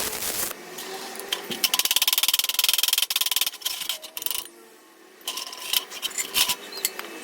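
Metalworking on steel: a fast, even crackle lasting about two seconds, then a short lull and scattered metal clicks and scrapes.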